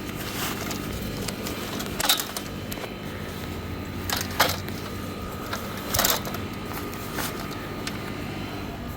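A few short rustles and clatters of a pop-up canopy's parts being handled and packed into its carrying bag, over a steady background hum.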